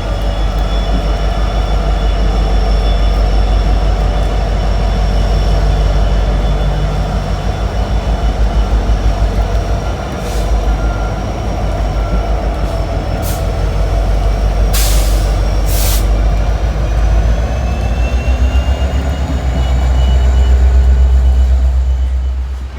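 Diesel locomotives of a train passing close by, engines running with a heavy pulsing rumble and thin high squeals from the wheels. There are two short hisses about two-thirds of the way in, and the sound cuts off suddenly at the end.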